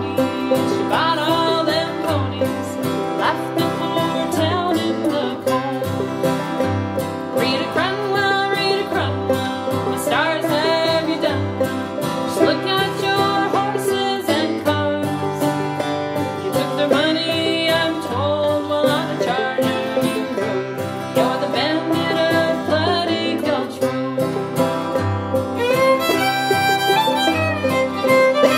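Instrumental break of a country-style song with no singing, played by an acoustic string band: plucked strings with a fiddle carrying a sliding melody.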